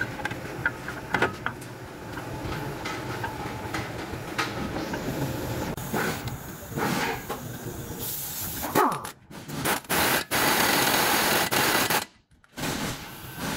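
Workshop clatter with a few sharp metal clinks from the axle and hub work. Then an impact wrench runs loudly and steadily for about two seconds on the new drive axle's hub nut.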